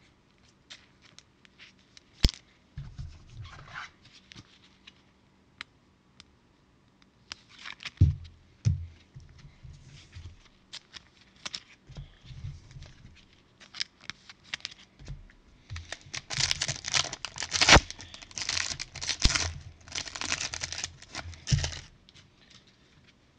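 A trading card pack's wrapper being torn open and crinkled, among scattered clicks and taps of cards being handled. The densest crinkling comes in the last third.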